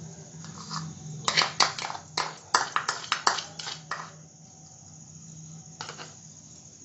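Metal kitchen utensils clinking: a quick run of sharp clicks starting about a second in and lasting roughly three seconds, then a lull and one more click near the end, over a low steady hum.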